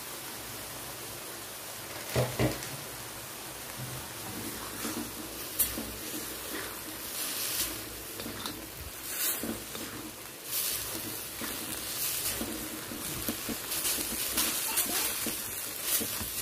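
Cabbage, carrots and rice noodles sizzling in a wok as a spatula stir-fries them, with irregular scrapes and knocks of the spatula against the pan; the loudest knocks come about two seconds in.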